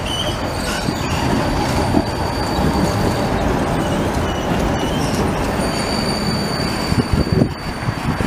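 Vienna low-floor tram running on curved track and pulling in past the camera, its wheels squealing in thin high tones over the rumble of the running gear, with a few knocks near the end.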